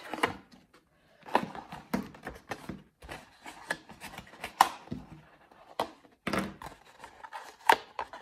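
Sheet of patterned craft paper being handled and rolled around into a tube: irregular rustling and crackling of the paper, with a few sharper crackles or taps against the tabletop.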